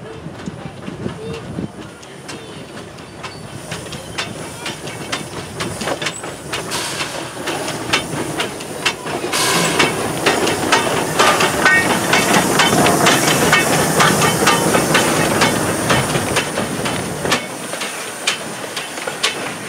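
Narrow-gauge steam tank locomotive drawing a train of coaches slowly past, its wheels clicking over the rail joints. Loud steam hissing starts suddenly about halfway through. The sound grows louder to a peak past the middle and eases off near the end.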